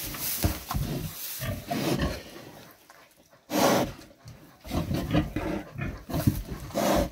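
A heavily pregnant sow grunting at irregular intervals as she noses around in straw bedding, with one louder, harsher burst a little past halfway. She is close to farrowing and restless.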